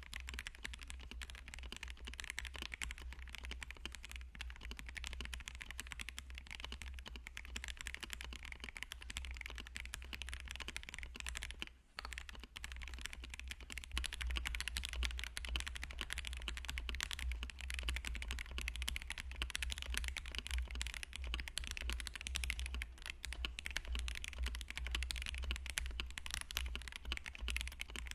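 Continuous fast typing on a KBD67 mechanical keyboard fitted with Akko Starfish switches: a dense run of keystroke clicks with a brief pause about twelve seconds in.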